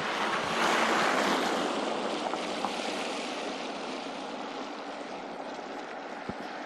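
A vehicle passing on a wet, slushy road: a rushing tyre hiss that swells about a second in and slowly fades away.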